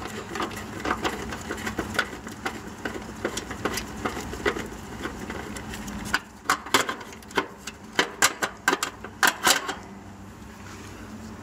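Light metallic clicks and clatter as an old 35/5 dual run capacitor is taken out of an air-conditioner condenser, with a run of louder, sharper clicks in the second half.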